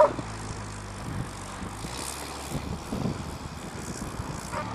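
Vehicle engine running with a steady low hum that fades somewhat in the middle.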